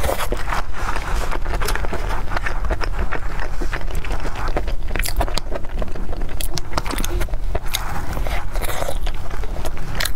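Close-miked eating sounds: chewing and wet mouth sounds, with many small crackles and scrapes from fingers handling and pulling apart a soft mung bean pastry.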